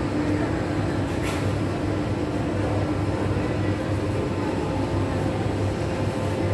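Steady low rumble of city background noise, with a brief high hiss about a second in.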